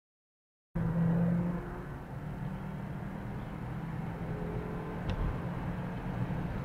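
A moment of dead silence, then the steady hum and road noise of a car driving on a highway, heard from inside the cabin. It is a little louder for the first second after it starts.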